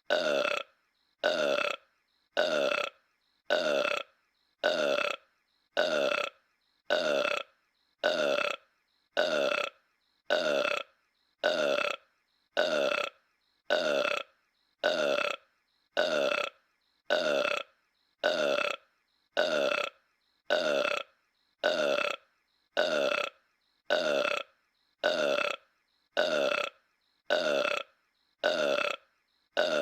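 The same short cartoon burp in Homer Simpson's voice, looped over and over at about one burp a second with a brief silence between each.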